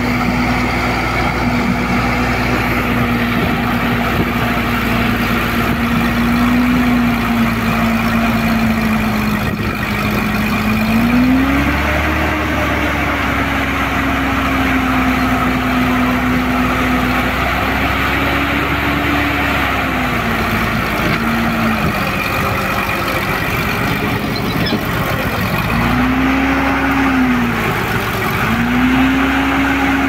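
Crawler bulldozer's diesel engine running under load as the dozer climbs a steep bank, its pitch rising and falling several times as the throttle is worked.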